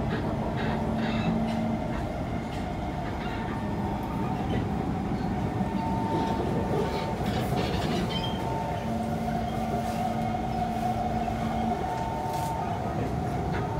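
Kawasaki C151 electric train running at speed, heard on board: a steady rumble of wheels on the rails with a few steady motor tones that come and go, and scattered light clicks.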